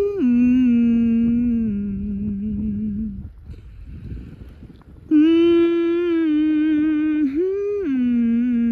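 A person humming a slow tune close to the microphone: long held notes with small pitch steps, a pause of about two seconds in the middle, then more held notes.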